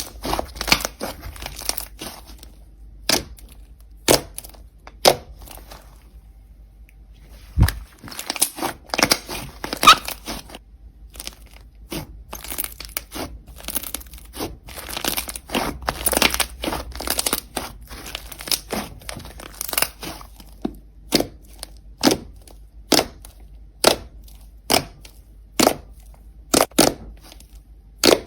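Slime being pressed and stretched by hand, making crisp pops and crackles. There are dense crackling stretches in the first half, then roughly one sharp pop a second near the end.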